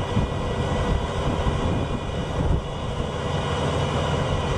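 Heavy rotator tow truck's diesel engine running with a steady low rumble.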